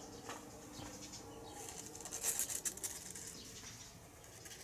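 Newborn kittens shuffling and nursing against their mother on a towel in a cardboard box: soft rustling and scratching, with a brief burst of crisp rustling about two seconds in.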